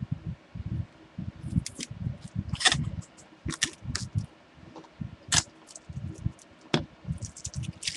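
Adhesive tape being peeled off an egg-shaped candy package, with irregular sharp crackles and low knocks as the package is handled.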